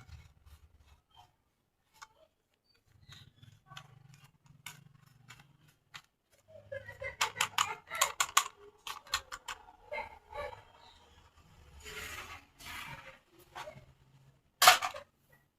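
Plastic toy parts and packaging handled up close: scattered clicks and rustles, a quick run of clicks about halfway through, and a sharp snap near the end.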